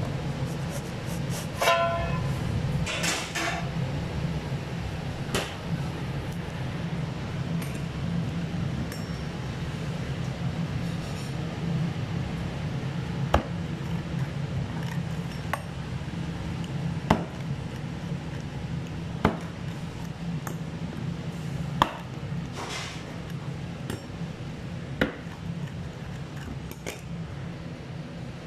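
A rolling pizza cutter slicing a freshly baked pizza on a wooden board: short scraping runs through the crust and a handful of sharp clicks where the wheel meets the board, spaced a couple of seconds apart. A steady low hum underlies it.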